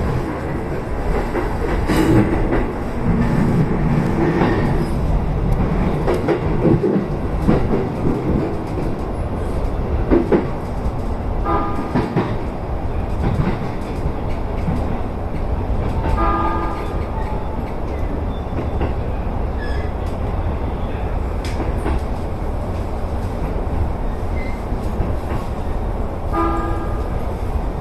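Electric commuter train running, with steady wheel and track rumble and rail-joint clatter. Three short horn blasts sound, about twelve seconds in, about sixteen seconds in, and just before the end.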